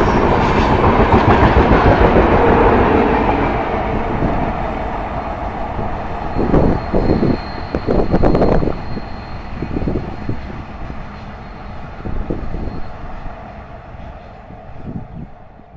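LHB passenger coaches rolling past on the rails. The noise is loud at first, then the wheels clack over rail joints in a few quick bunches as the last coach goes by, and the sound fades away as the train draws off.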